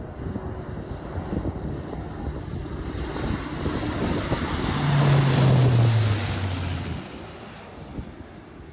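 Lockheed C-130 Hercules four-engine turboprop flying low past, its propeller drone swelling to a peak about five seconds in, then dropping in pitch and fading as it goes by.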